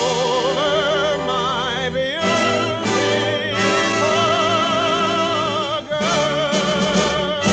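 Studio orchestra playing the closing bars of a 1950s film show tune, long held notes with heavy vibrato. The chord changes about two seconds in and again near six seconds.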